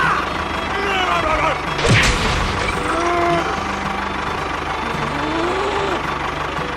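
Small DIY tractor engine running steadily with an even pulse, with a sharp knock about two seconds in.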